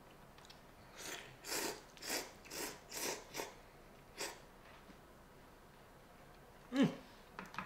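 A man slurping miso cup ramen noodles: a quick run of about six slurps, one more a moment later, then a short falling vocal sound near the end.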